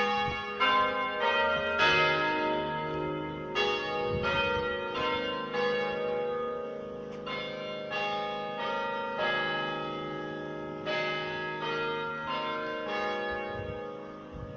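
Peebles parish church clock bells chiming the hour: a tune played in four phrases of four bell strokes each, the strokes about two-thirds of a second apart with a short pause between phrases, each bell ringing on into the next.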